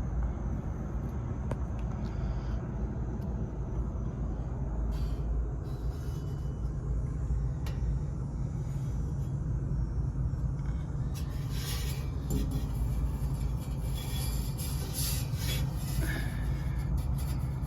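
A steady low rumble, with scraping and clicking of handled metal from about eleven seconds in.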